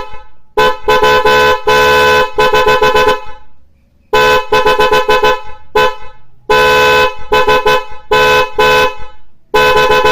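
A pair of 12-volt snail horns sounding together in two tones, very loud, in a series of blasts: some short taps, some held for a second or two.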